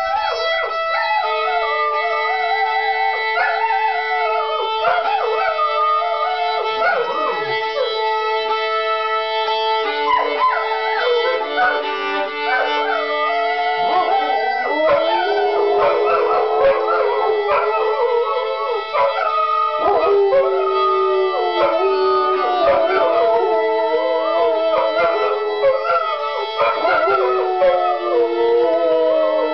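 Violin holding long, steady notes while two dogs howl along in wavering pitches that rise and fall above it. The violin's held note steps lower partway through.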